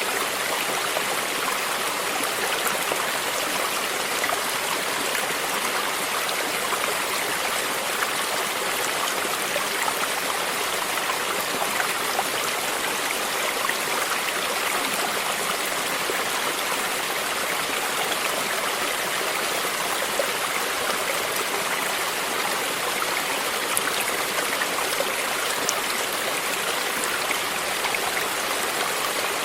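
Shallow stream flowing steadily, water splashing and babbling over rocks in an even rush with fine splashy detail.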